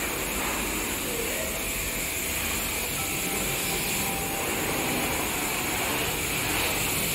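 Self-service wash machine's high-pressure water jet spraying onto a motorcycle: a steady hiss.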